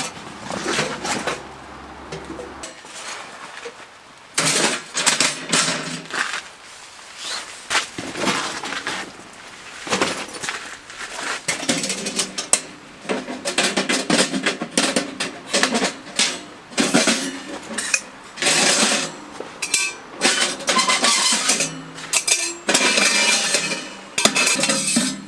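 Irregular clinks and clanks of metal camping gear being handled, over faint background music.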